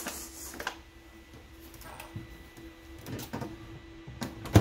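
Light knocking and rustling as things are handled on a kitchen counter, over a faint steady hum. Near the end a microwave door shuts with one sharp, loud clack.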